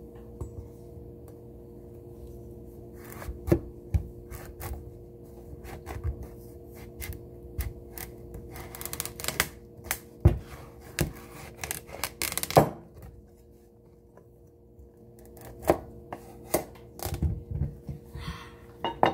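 Chef's knife cutting a raw butternut squash in half on a wooden cutting board: irregular knocks and thuds as the blade works through the hard squash, the loudest about ten and twelve and a half seconds in. A low steady hum runs underneath.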